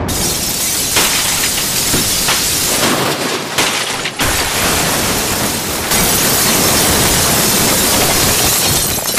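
Loud, dense rushing noise from a sound-effects montage, cutting abruptly to a different effect about four seconds in and again about six seconds in.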